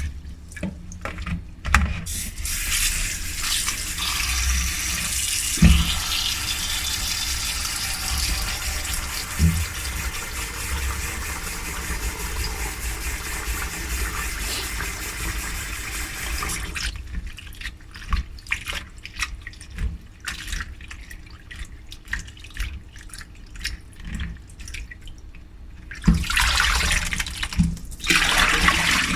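Kitchen tap running into a bowl of dried anchovies being rinsed, steady for about fifteen seconds, then shutting off into scattered splashes and small knocks as the anchovies are swished in the water, with a second short run of the tap near the end.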